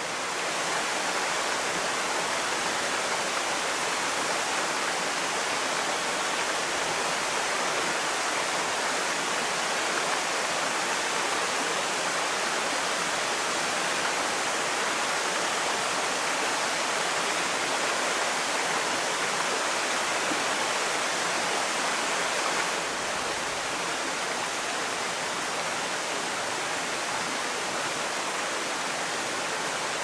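Waterfall cascading over rock: a steady, even rush of falling water, a little quieter from about three-quarters of the way through.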